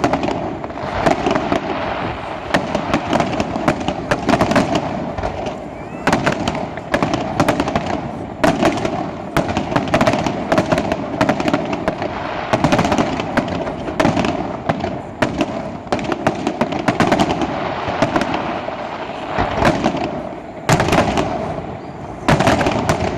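Fireworks display going off continuously: rapid overlapping bangs and crackles from bursting shells. There is a brief lull a few seconds before the end, then a loud new flurry of bangs.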